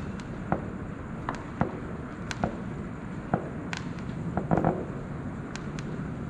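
Fireworks and firecrackers going off at irregular intervals: about ten sharp cracks and pops, with a short cluster of them about four and a half seconds in, over a steady background rumble.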